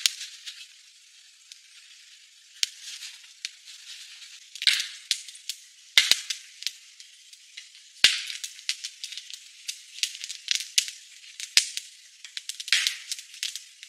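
Wood fire crackling and popping: irregular sharp pops over a soft hiss, with a few louder clusters of crackles, about five seconds in, at six seconds and near the end.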